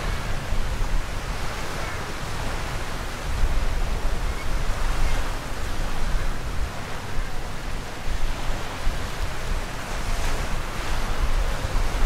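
Small waves breaking and washing up the sand in a steady surf wash, with wind rumbling on the microphone.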